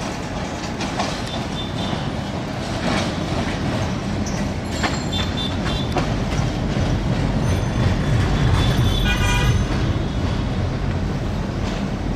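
Bangladesh Railway intercity express train passing close by: a steady rumble of wheels on the rails that swells toward the end, with a few sharp clicks over the rail joints and a brief shrill tone about nine seconds in.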